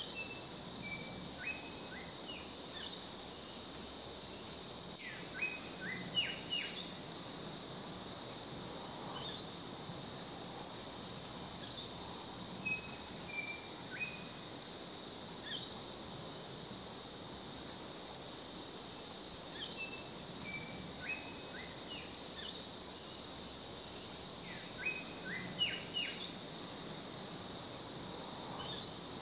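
Tropical rainforest ambience: a steady high-pitched insect chorus, with short, clustered bird chirps that sweep downward now and then.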